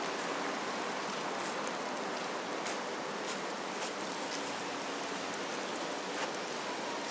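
Steady splashing of water, with many small high ticks scattered through it.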